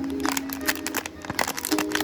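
Background music with held notes, over frequent quick crinkling and crackling of plastic blind-box packaging being handled.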